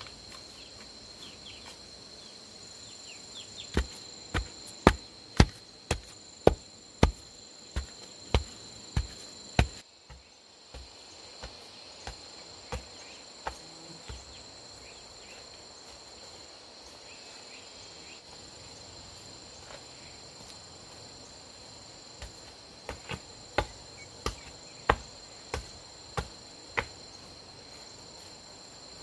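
Steady high-pitched drone of insects, under runs of sharp knocks about two a second from a tool striking wood or bamboo. About a dozen loud strikes come a few seconds in, then a few fainter ones, a long gap, and another run of strikes near the end.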